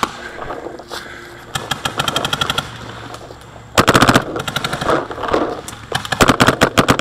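Paintball marker firing rapid strings of shots, with a quieter string early and the loudest strings about four seconds in and again near the end.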